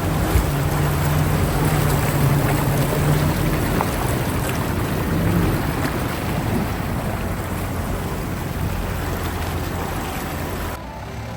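A car driving on a rough off-road track: a steady low engine hum under loud rushing road and wind noise. The rushing noise drops off sharply near the end.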